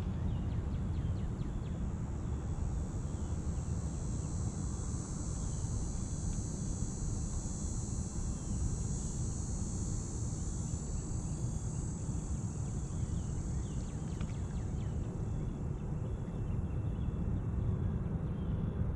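Outdoor ambience: a steady low rumble, with a high, even insect buzz that swells up a couple of seconds in and fades out past the middle, and a few faint bird chirps.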